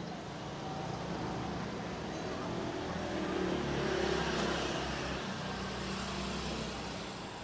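Street traffic: a motor vehicle's engine running as it draws near and passes, swelling to its loudest about four seconds in and then fading.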